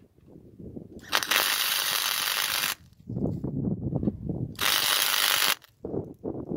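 MIG welder laying two tack welds on steel: two bursts of arc crackle, the first about a second and a half long and the second about a second.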